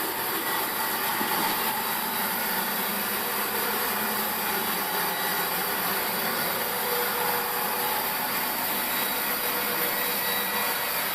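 Sawmill saw machine running steadily while cutting old pine wood. The steady whirring noise holds at an even level throughout.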